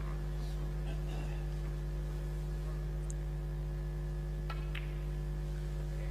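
Steady electrical mains hum on the broadcast sound, with two faint clicks close together about four and a half seconds in.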